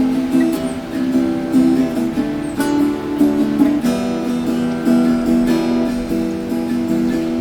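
Background music: a strummed acoustic guitar playing a steady chord progression.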